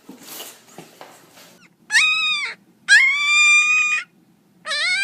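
A dog whining in three long, high-pitched cries, the last one rising in pitch, after a moment of soft rustling.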